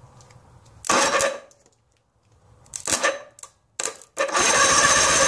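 Electric starter cranking an Evinrude 60 HP two-cylinder two-stroke outboard for a cold, dry compression test: three short bursts, then a longer crank near the end.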